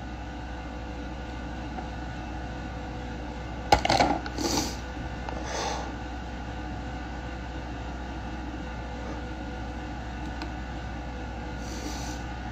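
A woman crying into her hands: a sharp click about four seconds in, then a few short breathy sobs over a steady room hum.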